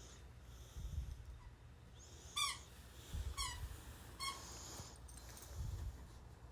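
Puppy whimpering: three short, high-pitched whines about a second apart, the first the loudest, with breathy snuffling between them.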